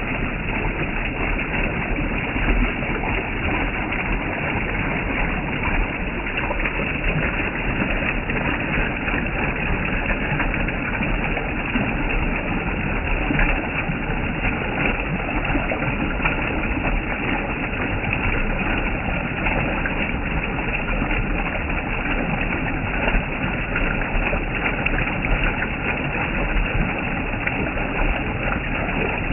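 Steady rushing of water going over a waterfall.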